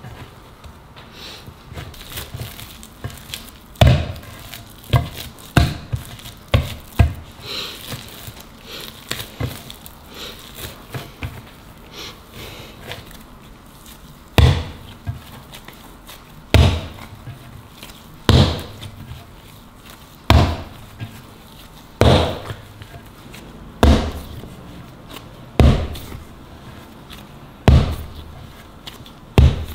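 Bread dough kneaded by hand on a marble board, with soft pressing and rubbing broken by dull slaps as the dough is thrown down onto the marble. There are a few quick slaps about four to seven seconds in, then a steady slap about every two seconds through the second half.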